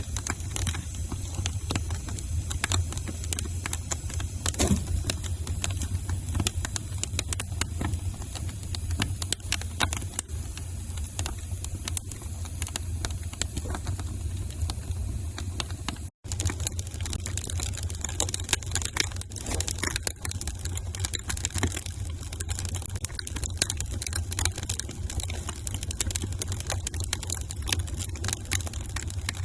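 Wood fire crackling in a fireplace: irregular sharp pops and snaps over a steady low rumble, with the sound cutting out for a split second a little past halfway.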